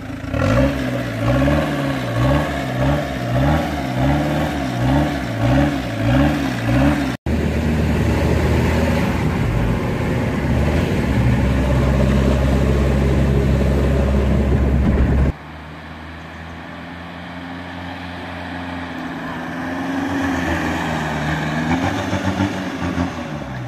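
Renault Kangoo van's engine with its exhaust silencer removed, revved up and down in quick repeated blips. It then runs as a loud steady low drone heard from inside the cabin while driving. About fifteen seconds in it drops quieter and rises in pitch as the van accelerates away.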